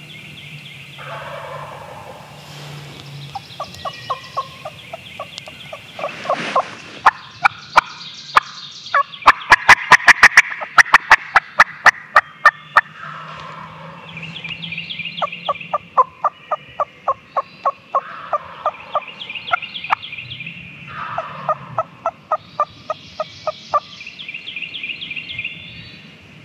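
Wild turkey gobbling over and over, loud, in runs of rapid rattling notes; the loudest run comes about ten seconds in.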